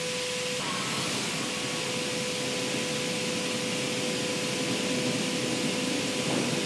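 Steady hiss of a paint robot's rotary-bell atomizer spraying paint mist onto a car body, with a faint steady tone under it.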